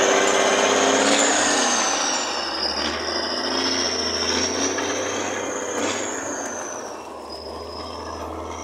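Loaded White log truck pulling away along a muddy dirt road, its engine and tyres fading as it goes. A high whine that wavers in pitch rides over it.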